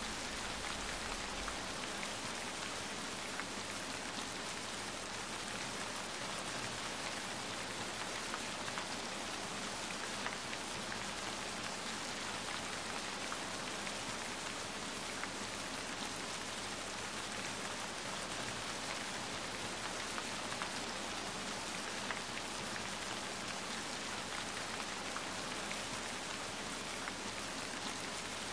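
Steady rain falling, an even hiss with a few faint drop ticks scattered through it.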